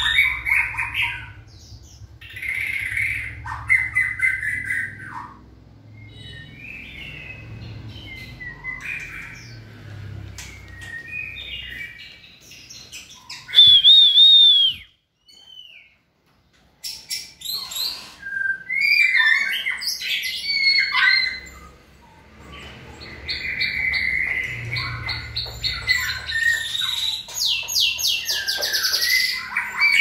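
Caged white-rumped shamas calling and singing: a string of short whistled and harsher notes, with one loud whistled note about halfway through. The sound drops out briefly after that note, and near the end comes a rapid run of repeated notes.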